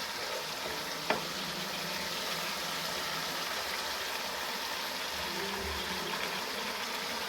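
Spice paste frying in hot oil in a pan, with a steady sizzle and a single click about a second in.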